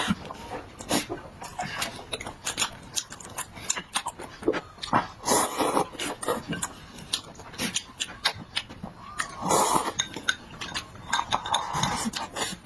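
Close-up eating sounds: wet chewing and lip-smacking in quick irregular clicks, with clinks of utensils against dishes.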